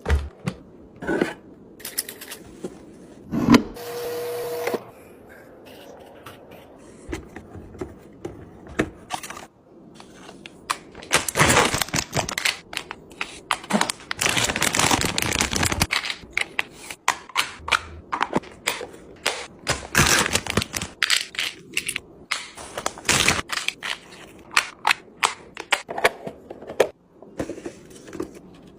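Containers, bottles and packaging being handled while restocking a fridge: many sharp clicks, knocks and clatters. A brief steady tone sounds about four seconds in, and there are longer noisy stretches in the middle.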